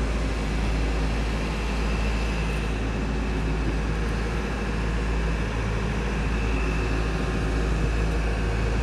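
Rhine car ferry's diesel engine running steadily during the crossing: a constant low drone with a deep rumble beneath it.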